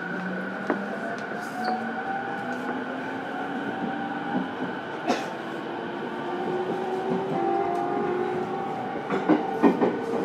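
E231-series electric train's VVVF inverter and traction motors whining, heard from inside the motor car. Several tones climb slowly in pitch as the train accelerates. Sharp clicks and knocks from the wheels and running gear come in between, more of them near the end.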